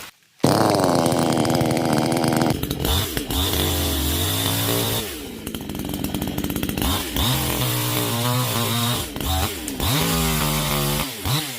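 Vulcan chainsaw's two-stroke engine running hard, its revs dropping and climbing again several times as the throttle is eased off and opened up.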